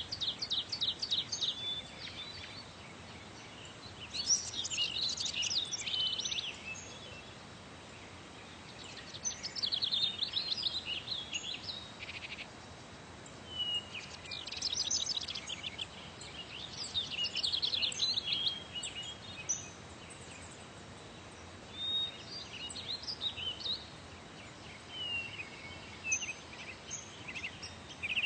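Small songbirds singing, a phrase of rapid high trills and short slurred notes every few seconds, over a faint steady hiss.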